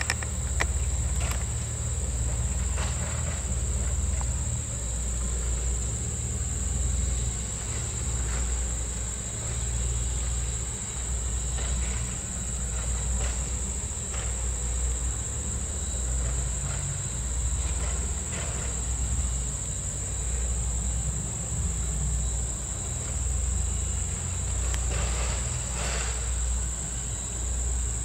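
Steady high insect chorus over the low, rhythmic exhaust beat of Norfolk & Western 4-8-0 steam locomotive 475 working its train, pulsing about once a second, with a few faint clicks.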